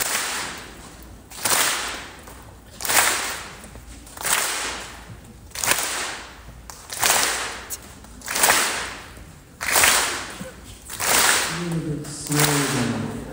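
Regular loud noisy hits in a reverberant concert hall, one about every second and a half, each ringing out for about a second. Several low pitched notes come in near the end.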